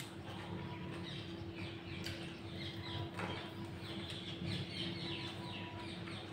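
Small birds chirping in quick runs of short falling notes over a steady low hum, with one sharp click about three seconds in.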